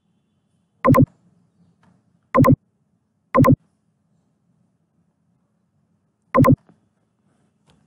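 Computer mouse clicks picked up loudly by the microphone: four sharp clicks, three in quick succession in the first few seconds and one more near the end, each a double snap of button press and release. A faint low hum runs underneath.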